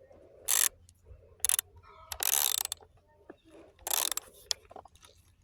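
Ratchet wrench with a 10 mm socket clicking in about four short bursts as the chainsaw's guide-bar nuts are tightened back down after the chain has been tensioned.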